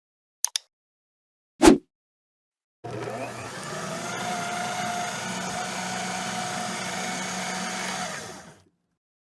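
Two quick clicks and a single thump, then a small electric motor runs steadily for about six seconds and stops shortly before the end.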